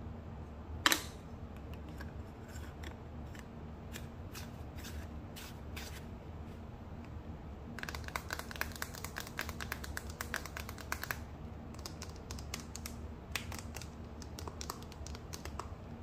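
Metal screw lid being put on and twisted closed on a cream jar: a dense run of rapid scraping clicks from the threads, starting about eight seconds in and lasting about three seconds. Around it, scattered small clicks and taps of the jar being handled, and one sharp click about a second in.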